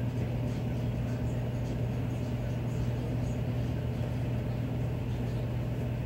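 Miller E2 furnace running steadily in cooling mode: a constant low hum under an even rush of air.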